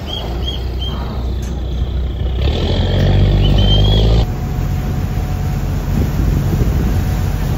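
Diesel engine of a river passenger boat rumbling at a pier, growing louder about two and a half seconds in. Over it come a few short high whistle toots at the start and a longer rising toot about three and a half seconds in, the crew's signals to the boat's driver. After that the engine rumble runs steadier.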